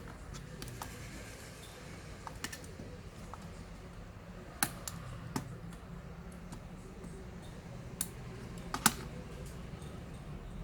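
Scattered sharp clicks and taps from handling a laptop's plastic and metal parts during disassembly, a few seconds apart, over a steady low hum.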